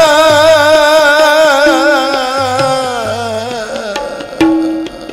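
Sikh kirtan: a singer holds a long wavering note over harmonium and tabla. The note slides down and ends about four seconds in, leaving the harmonium's steady chord and tabla strokes.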